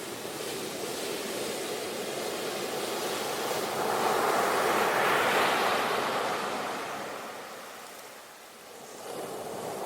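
Ocean waves breaking on the shore: the surf swells to a loud wash about halfway through, falls away, and the next wave begins to build near the end.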